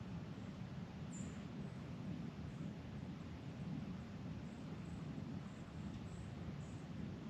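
Quiet woodland ambience: a steady low rumble with faint, short, high chirps of small birds now and then.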